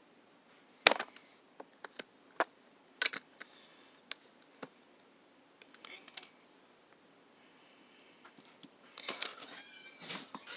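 Slime being pressed and poked by hand, giving scattered sharp pops and clicks, the loudest about a second in, then a run of crackly squishing about nine seconds in.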